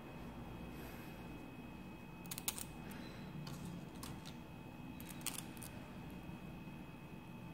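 Small metal science-kit parts, a triangle bracket and a screw, clicking as they are handled and the screw is fitted into the bracket: a scattering of short sharp clicks, the loudest about two and a half seconds in, over a faint steady hum.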